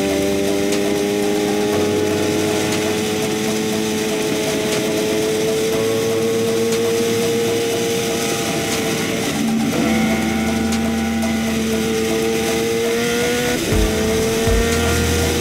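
Sport motorcycle engine running steadily while riding, its note slowly rising and dropping briefly twice, about two-thirds of the way in and near the end, with wind noise throughout.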